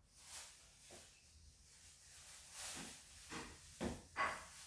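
Quiet handling noises from hands working a roll of material: soft hissing rustles, then a few light knocks and a short squeak near the end.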